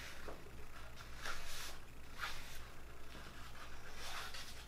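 Foam brush spreading Mod Podge glue along a cardboard tube: a few short scrubbing brush strokes about a second apart.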